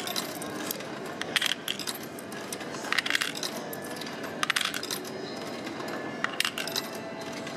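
Ten-yen coins fed one at a time into a Japanese drink vending machine's coin slot, each clinking as it drops inside. There are four drops, about a second and a half apart.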